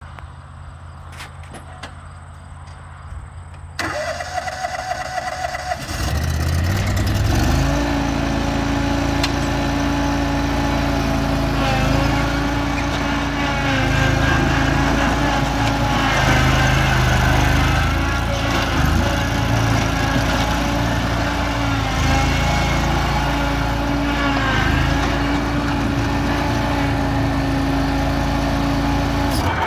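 2012 John Deere Z950A zero-turn mower's engine running low at first, then speeding up about four seconds in and running louder and steadily for the rest, with small rises and dips in speed as the mower is driven.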